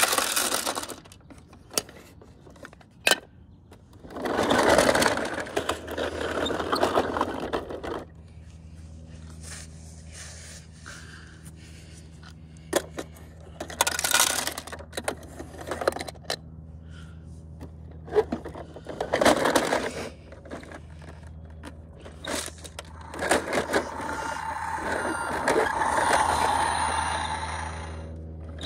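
Plastic toy garbage truck and toy bins being handled on rough concrete: several bursts of plastic clattering and wheels scraping, with sharp clicks, over a steady low hum.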